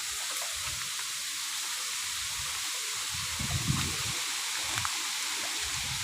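Strong wind rustling the leaves of a bamboo grove, a steady hiss, with low gusts buffeting the microphone about halfway through.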